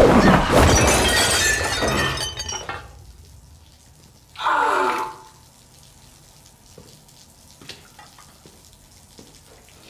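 Fight-scene sound effects: a loud crash of breaking porcelain, with shards ringing and scattering for about two seconds. About four and a half seconds in comes a brief cry falling in pitch, followed by a few faint small ticks.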